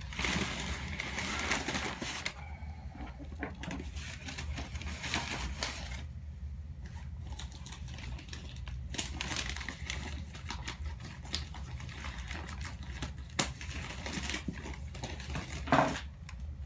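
Packing material rustling and crinkling in irregular bursts, with scattered light clicks and knocks, as plants are unwrapped from a shipping box; a steady low hum runs underneath.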